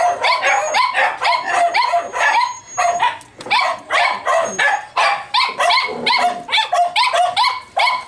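Small dogs barking and yipping in quick succession, about three to four barks a second, without a break: the dogs are greeting their owner, who has just arrived home.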